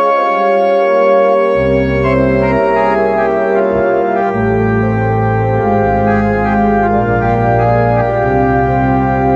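Organ playing held chords that change every second or so, with deep bass notes joining about a second and a half in.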